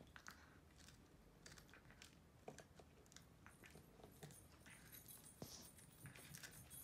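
Near silence with faint, scattered small clicks and crunches: a Shih Tzu puppy nibbling at bits of something on a wooden floor.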